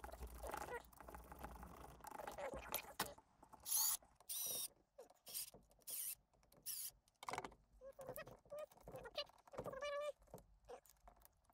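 Cordless drill/driver whining in a few short bursts as it drives screws snug into an RC truck's chassis, amid small clicks and knocks from handling parts and tools.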